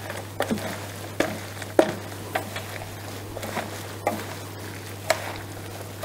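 Gloved hands kneading and tossing a mass of grated raw potato and cheese in a stainless steel pan: irregular wet rustling and squishing, with scattered sharp clicks against the pan. A steady low hum runs underneath.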